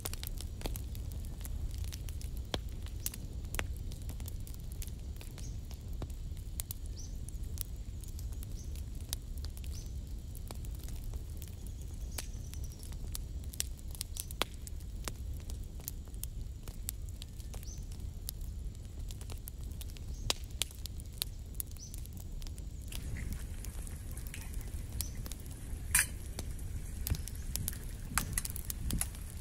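Chopped tomatoes sizzling as they fry in a pan over a crackling wood fire, with many scattered sharp pops over a low steady rumble. Near the end eggs are cracked into the pan, with one sharp crack.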